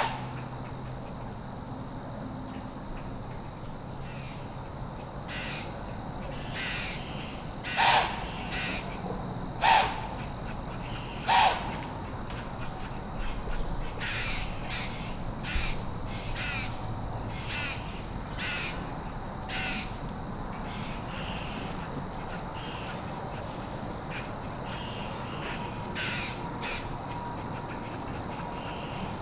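Crows cawing in the woods: three loud caws close together about eight to eleven seconds in, with fainter, more distant caws scattered through the rest.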